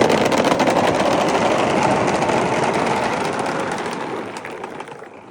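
Marbles rolling and clattering down a marble run track: a dense, steady rattle of small clicks that slowly fades toward the end.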